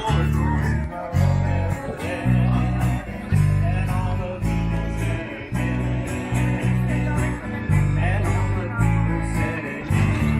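Guitar music with a strong bass line changing notes in a steady beat.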